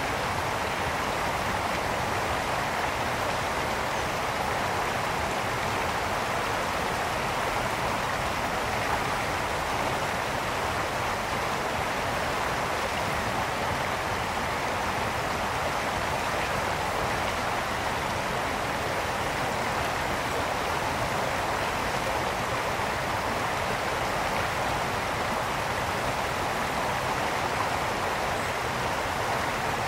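Brook water flowing and splashing in a steady, unbroken rush.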